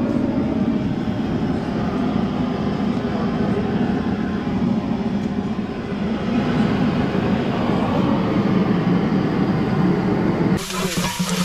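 Steady low rumbling noise. About ten and a half seconds in it changes abruptly to the hiss and sizzle of a large pot over a wood fire being stirred.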